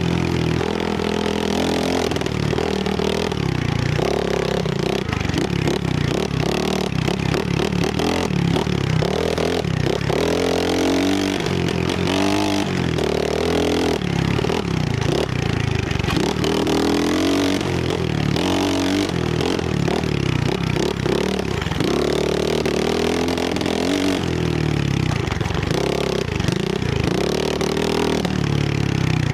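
Trailmaster 125 pit bike's small single-cylinder four-stroke engine being ridden hard, its pitch revving up and falling off again and again as the throttle is worked and gears change. Frequent rattles and knocks run over it.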